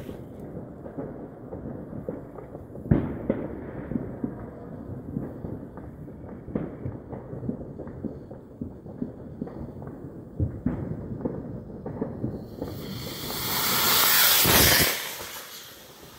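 Homemade sorbitol and potassium nitrate rocket motor in a PVC casing: irregular crackling while the fuse burns, then the motor ignites about twelve seconds in with a loud rushing hiss that swells for about two seconds and drops away quickly as the rocket lifts off.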